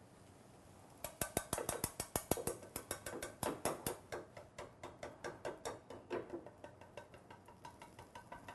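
Bamboo chopsticks tapping and clicking quickly against a rectangular tamagoyaki pan as the setting egg is poked to break its air bubbles; many quick clicks a second, starting about a second in.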